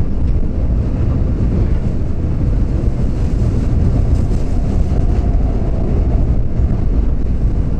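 Subway train running over a steel railway bridge, heard from inside the train: a steady, loud, low rumble of wheels on rail.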